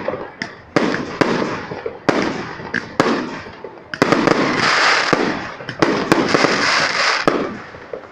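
Aerial fireworks shells bursting overhead: sharp bangs about a second apart, then from about four seconds in a dense hiss for some three seconds as many stars break at once, closing with more bangs.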